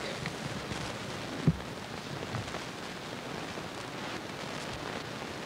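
Steady din of a bowling alley, a even rushing noise of balls rolling and machinery on the lanes, with a single low thump about a second and a half in.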